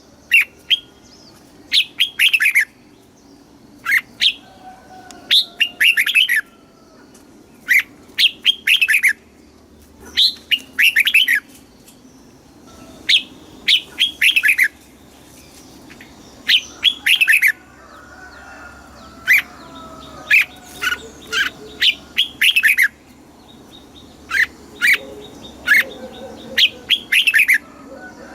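Red-whiskered bulbul singing: short, loud phrases of quick notes that sweep down in pitch, repeated every second or two.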